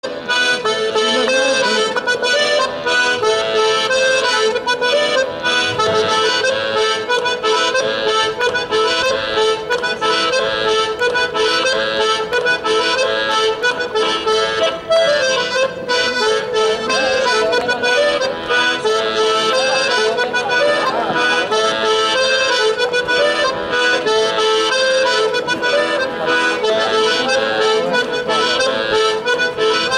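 Live traditional Breton folk music: a steady instrumental tune of sustained notes played by the stage musicians, with no singing.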